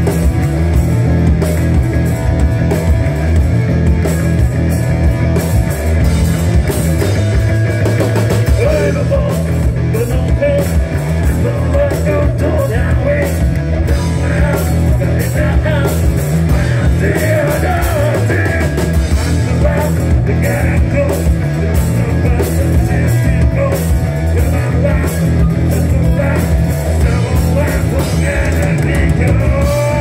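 Live funk-rock jam on electric bass and drum kit: a thick, steady bass line under busy drumming, with a wavering lead melody that bends in pitch over them.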